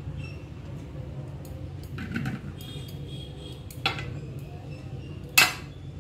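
Three light clinks and knocks of kitchen utensils, about two, four and five and a half seconds in, the last one sharpest and loudest with a short ring, over a steady low hum.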